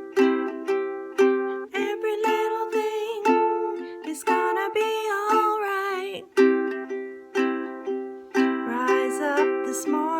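Ukulele strummed in a steady rhythm. A voice carries a wavering melody over it from about two seconds in until about six seconds, and again near the end.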